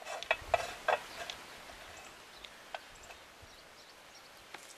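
Several sharp metallic clicks and clinks in the first second from hands working the steel ratcheting friction brake, then a few faint ticks.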